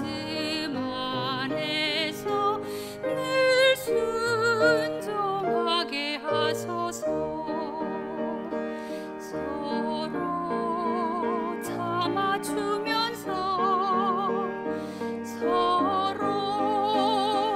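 Solo soprano singing a sacred song with wide vibrato, accompanied by piano.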